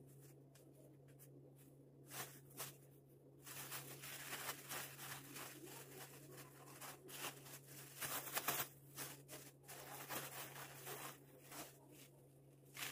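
Thin plastic bags crinkling and rustling as flatbread is handled inside them, starting about two seconds in and busiest around the middle, over a steady low hum.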